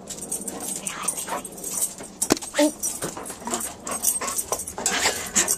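A guide dog greeting people excitedly up close, with short whimpers among breathy sniffing noises, and scattered knocks and rustles as it pushes against the camera.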